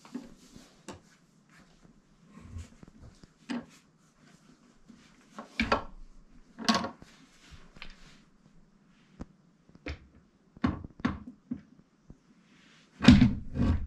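Parts of an office chair being handled and fitted together during assembly: irregular knocks and clunks, the loudest near the end.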